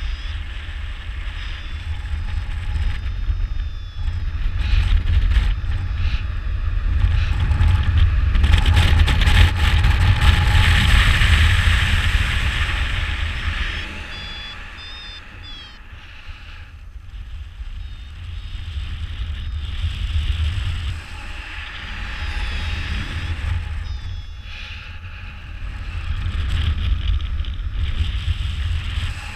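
Wind rushing over the microphone of a paraglider in flight, a deep buffeting rumble that swells and fades in long waves as the glider swings through wingovers and its airspeed rises and falls. A few short high beeps come about halfway through.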